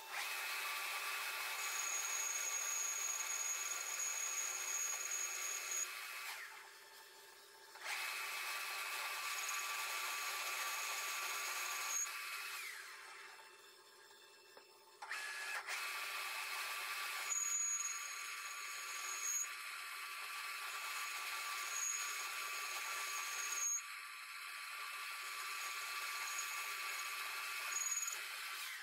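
Power tool fitted with a 14 mm end mill, running with a steady high whine as it cuts away the crimped rim that holds the cap on a steel anti-roll bar link, with the lathe turning the part in reverse. The whine cuts out twice for a second or two and then starts again.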